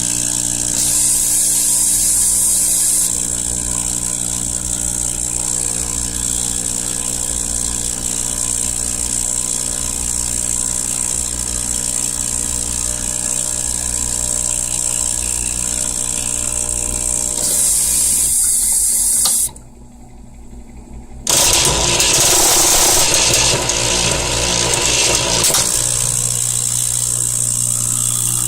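Saeco 200 coffee machine running with a steady mechanical hum and a rapid, horrible clicking. It cuts out for about two seconds about twenty seconds in, then starts again with a louder whirr for a few seconds before settling back to the hum.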